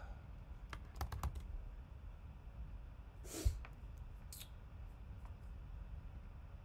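Computer keyboard typing: a quick run of keystrokes about a second in, entering a stock ticker, then a louder thump with a short rush of noise about three and a half seconds in, and a few faint clicks after.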